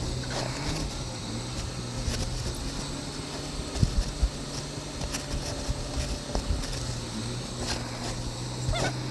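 Semi truck's engine running, heard from inside the cab as a steady low hum that dips and resumes, with scattered clicks and knocks and a few brief squeaks, near the start and again near the end.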